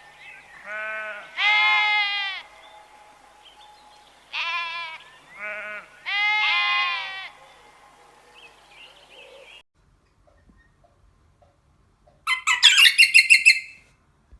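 Livestock bleating: five wavering cries, two close together then three more after a short pause. Near the end, after a break, a different animal gives a fast string of high-pitched pulsed calls for about a second and a half.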